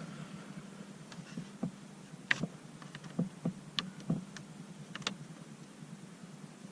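Small, sharp plastic clicks and scrapes of a tape-wrapped pick prying at the dash trim around a car's push-start button, about eight irregular clicks with the loudest near the middle, over a steady low hum.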